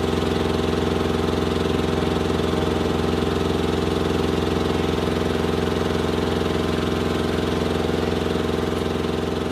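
An engine idling steadily, with an even, rapid pulsing and a low hum.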